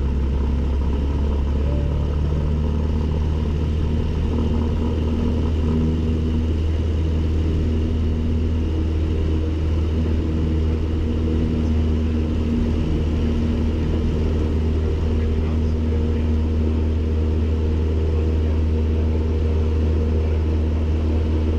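Cessna 152's four-cylinder Lycoming engine and propeller running steadily, heard from inside the small cockpit as the plane rolls down the runway. The deep drone holds an even level throughout.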